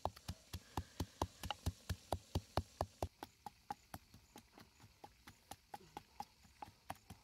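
Wooden pestle pounding chilies and garlic in a wooden mortar: a steady rhythm of dull knocks, about four a second, growing softer after about three seconds.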